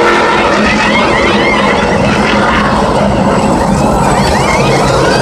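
NASCAR Camping World Truck Series trucks' V8 engines running at pit-road speed, a loud steady drone, with many short high rising whines over it.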